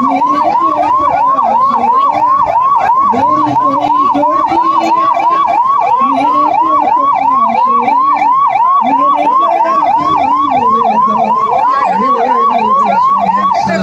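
Ambulance siren sounding in a fast yelp: a rising whoop repeated evenly about three times a second, loud and steady, cutting off near the end.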